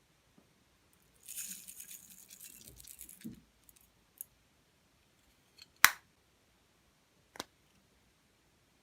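Small objects being handled at close range: a crackling, crinkling rustle for about two seconds, then three separate sharp clicks, the middle one loudest.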